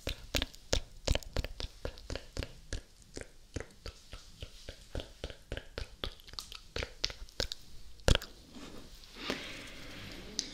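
Close-miked wet mouth sounds: fast, irregular clicking and popping of lips and tongue, several small clicks a second, with one louder pop about eight seconds in and a short soft rush of noise near the end.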